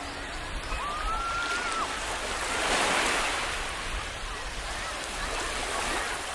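Sea waves washing onto the beach: the surf swells to a peak about three seconds in and builds again near the end.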